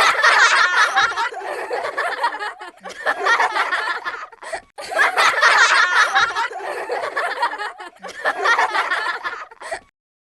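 High-pitched laughter and snickering in two long bursts with a brief break between them, cutting off shortly before the end.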